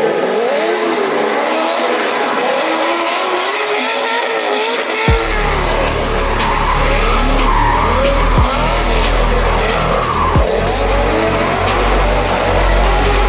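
Rear tyres of a C5 Corvette Z06 squealing in wavering, changing pitches as they spin and slide through donuts. About five seconds in, music with a heavy bass beat comes in underneath.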